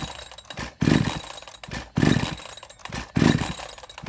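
Two-stroke Chinese 52cc chainsaw with a 62cc crank being pull-started on cold-start choke: about four pulls of the recoil starter, a little over a second apart, each giving a brief cranking burst that dies away. The engine does not catch.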